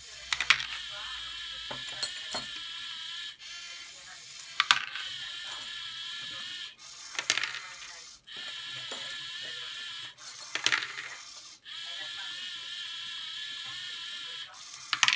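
LEGO Mindstorms sorting machine running: the electric motors and plastic gears whir steadily as the tread conveyor moves, broken about every three seconds by a sharp plastic clatter as the Technic sorting arm swings and an M&M is knocked into a bin.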